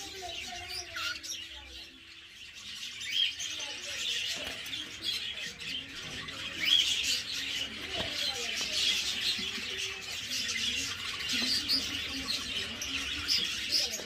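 Budgerigars chattering: a continuous jumble of quick chirps and warbles, quieter at first and busier from about three seconds in.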